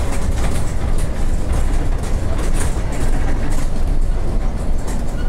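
Interior noise of a Translohr rubber-tyred, centre-rail-guided tram under way: a steady low rumble from the running gear, with occasional faint clicks and rattles.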